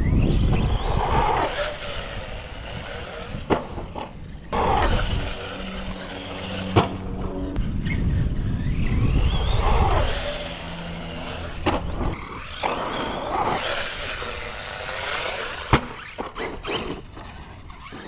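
Arrma Kraton 4S RC truck's brushless electric motor whining up and down over and over as the truck speeds up and slows, with a few sharp knocks.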